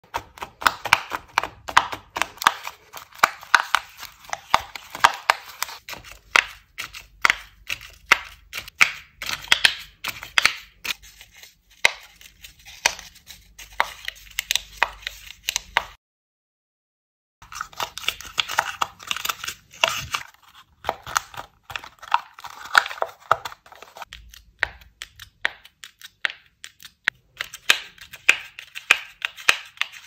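Paper origami pop-it bubbles being pressed in quick succession, giving a run of irregular crisp paper clicks and crinkles, with a short silent break just past the middle.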